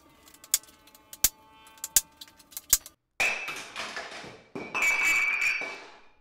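Five hammer blows on the steel of the outboard's flywheel and crankshaft end, each ringing, about one every 0.7 seconds, struck to shock the flywheel loose from its tapered crankshaft after the puller stripped the aluminum threads. About three seconds in they stop abruptly, and a loud hissing noise with a steady high tone takes over until near the end.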